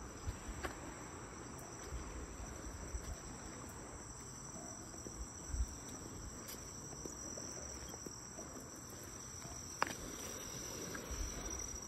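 Night insects, crickets or similar, chirring in a steady high-pitched chorus, with faint low bumps from the phone being handled while walking and a sharp click near the end.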